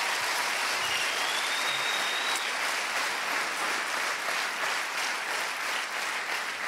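Large theatre audience applauding steadily, many hands clapping at once, in response to a comedian's joke.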